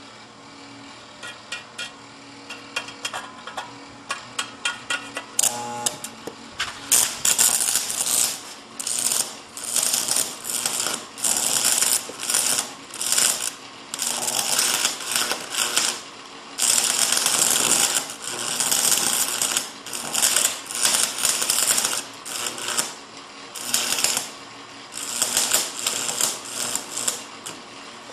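Stick-welding arc from a homemade arc welder built from two microwave oven transformers. There are scattered ticks in the first few seconds, then the arc crackles in repeated bursts of a second or two, breaking off and restriking, over a steady low hum.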